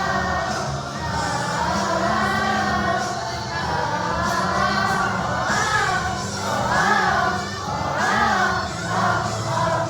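A group of young schoolchildren singing a song together.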